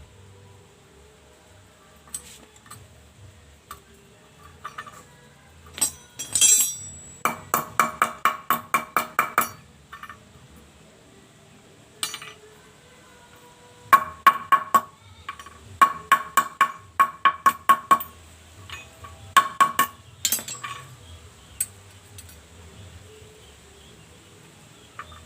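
Runs of rapid metallic ratchet clicks, about six a second with a ringing note, in four or five bursts separated by scattered single clicks.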